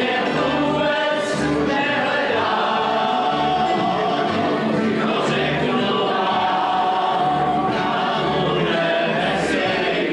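A group of voices singing together to strummed acoustic guitars and a plucked double bass, with the bass notes keeping a steady beat.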